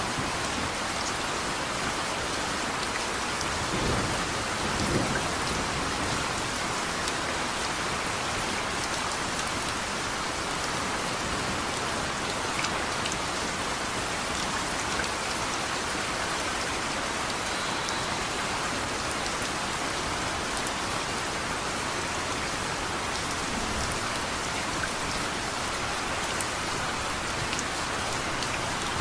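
Steady rain falling, an even hiss of drops, with a brief low rumble of thunder about four to five seconds in.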